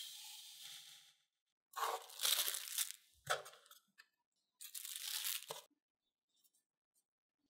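Plastic cling film crinkling as it is peeled off rested bread dough balls, in two rustling bursts, with a soft thud of dough being set down in between. At the start, a soft hiss of butter being rubbed across a bamboo cutting board.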